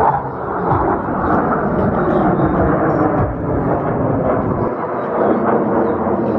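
Aircraft engine noise with people's voices mixed in, a steady rumble with no clear breaks; the deepest part of the rumble drops away about three-quarters of the way through.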